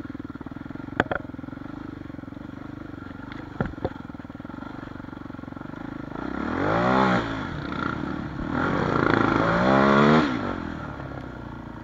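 Dirt bike engine running at low throttle, with two sharp knocks in the first few seconds. It then revs up twice, the pitch climbing and falling each time, around the middle and again near the end.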